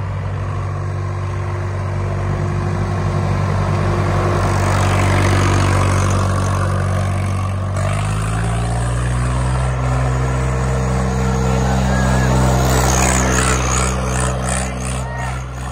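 Swaraj 744 XT tractor's diesel engine running hard under load as the tractor spins in a tight circle in loose sand. The engine note shifts about halfway through.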